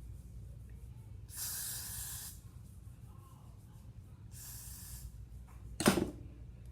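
Two bursts of aerosol hair spray, about a second each, hissing from a Got2b spray can. Near the end comes one sharp knock, louder than the spraying.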